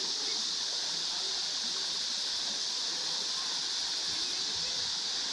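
Evening insect chorus: a steady high buzz that holds even throughout.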